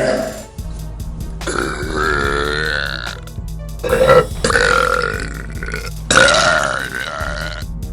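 A girl burping, a string of long, loud, drawn-out burps one after another, the longest lasting about a second and a half.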